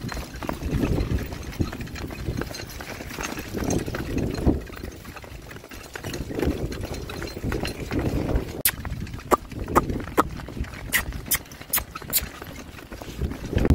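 Hoofbeats of a pair of Shetland ponies pulling a cart, over a steady low rumble, with a run of sharp clicks in the second half.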